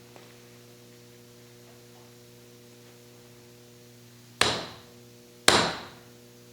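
Two sharp hammer blows about a second apart, each ringing briefly, knocking at a fragment of seized piston ring stuck in a piston's ring groove. A steady electrical hum runs underneath.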